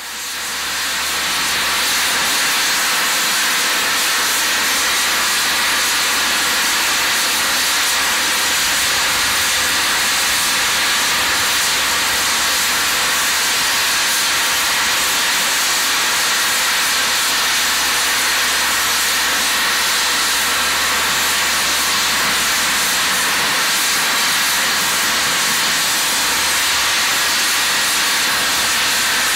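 Steam hissing steadily from LSWR T3 4-4-0 No. 563 as it stands in steam. The hiss fades in over the first second or two and then holds level.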